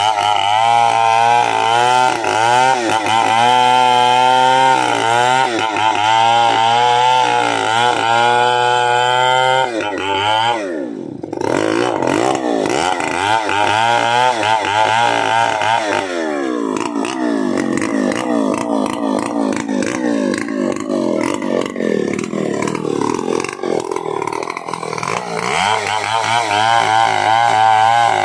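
Stihl 070 two-stroke chainsaw running at high revs in repeated wavering bursts. About ten seconds in the engine note drops sharply, then climbs back and runs rougher and less clear-toned for a while before revving high again near the end.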